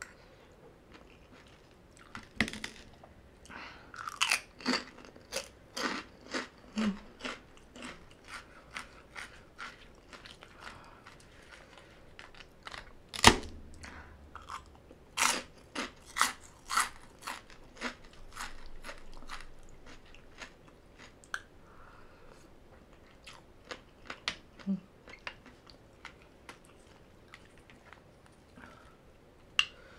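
Close-miked chewing of a mouthful of spicy green papaya salad, with crisp crunches about two a second. One much louder crunch comes about halfway through, and the chewing thins out to a few scattered crunches in the last third.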